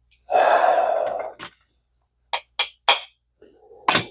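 Small metal parts inside a vintage Zebco 33 spincast reel being forced into place: a rasping sound for about a second near the start, then several sharp clicks, the loudest near the end, as a stubborn part is pushed home.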